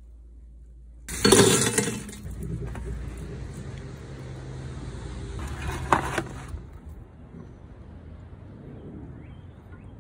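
Steel hanging rods clanking and rattling against a steel drum smoker as they are set in place. The loudest clank comes about a second in, with a second sharp clank about six seconds in and quieter scraping afterwards.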